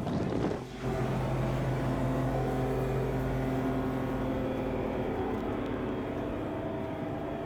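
Steady mechanical hum of a sportfishing boat's onboard machinery, a constant droning tone with a brief dip in level a little under a second in.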